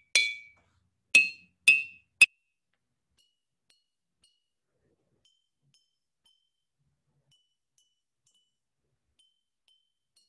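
Glass mason jars partly filled with water, struck one after another with a plastic knife: four clear ringing clinks in the first couple of seconds, the pitch stepping up from strike to strike, then near silence. Each jar rings at its own pitch, higher the less water it holds.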